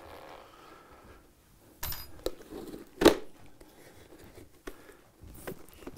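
Handling noise from a handmade accordion bellows and its wooden frames: faint rustling with a few light knocks, the sharpest about three seconds in.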